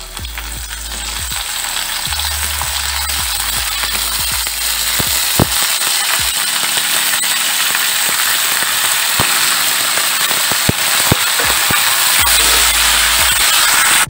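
Yard-long beans frying in hot mustard oil in a steel kadai: a hissing sizzle that swells over the first couple of seconds as the beans go in, then holds, with sharp pops of spattering oil scattered through it.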